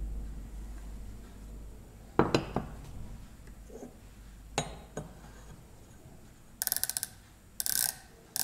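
Hardened steel parallels clinking and knocking as they are set down and shifted on a wooden bench. Near the end come two short runs of rapid clicks from a micrometer's ratchet thimble closing on a parallel, then a couple of single clicks.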